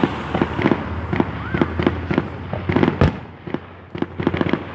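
Aerial fireworks display: quick pops from bursting shells, several a second, with one deeper, louder boom about three seconds in.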